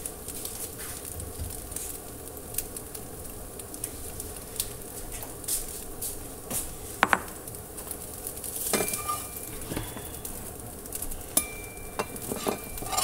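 Greens-and-egg thoran still sizzling and crackling faintly in a hot frying pan. In the second half come a few sharp clinks of a metal spoon and a glass bowl, two of them ringing briefly, as the thoran starts to be spooned into the bowl.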